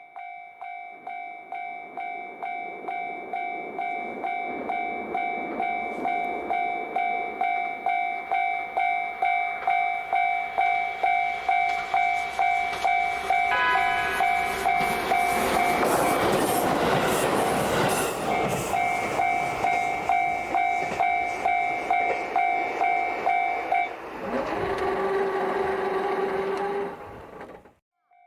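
Level-crossing warning bell ringing in two steady tones about twice a second while a JR Hokkaido H100 'DECMO' diesel-electric railcar approaches. The railcar gives a short horn blast about halfway through, then passes with loud rail and engine noise. The bell stops near the end while the train noise carries on for a few seconds, then the sound cuts off.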